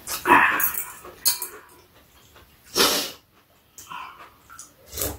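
Loud slurping and mouth noises of people eating glass noodles (japchae) with chopsticks, in several short noisy bursts.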